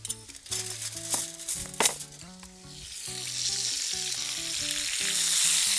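Duck breast sizzling in its rendered fat in a frying pan on a gas burner. The sizzle swells up about three seconds in, after a few short knocks and rustles of handling.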